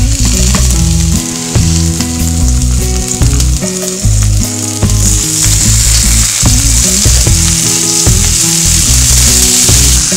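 Lobster pieces sizzling as they fry in a hot oiled pan while more pieces are laid in. The sizzle grows louder about halfway through.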